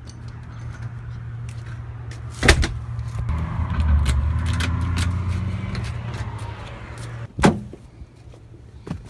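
A front door being shut and locked with a key in its deadbolt, keys jangling, with two sharp knocks, about two and a half seconds in and again near the end, over a low steady hum.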